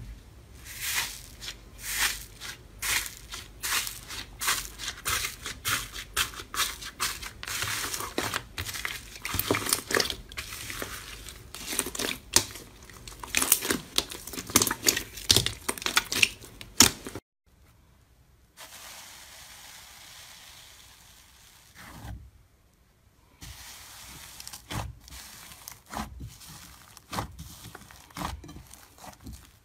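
Hands pressing, stretching and kneading slime: a dense run of crackling, crunching pops for most of the first half. After a brief silence comes a faint steady hiss, then sparser crackles and pops as a thick slime is squeezed.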